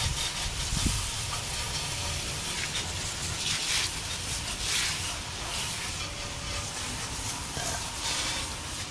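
Garden hose spray jet hissing as it hits an alloy wheel and tyre, rinsing wheel cleaner and loosened grime off. The spray swells louder for a moment or two about halfway through as the jet is swept across the wheel.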